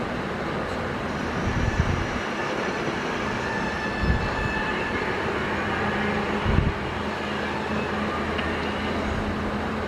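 Caterpillar 320 hydraulic excavator's diesel engine running steadily under work, with three heavy thumps about two and a half seconds apart.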